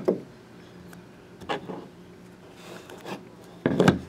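Stiff cardboard decoy inserts from a trading card box being handled and tapped against a tabletop: a few light knocks and scrapes, the loudest near the end.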